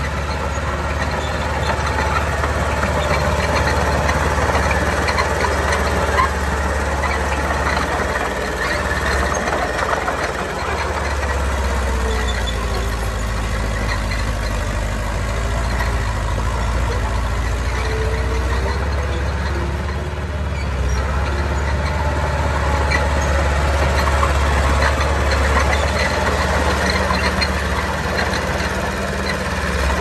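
Diesel engine of a heavy earthmoving machine running steadily, its low note dipping and swelling several times, with clattering from the machine's work.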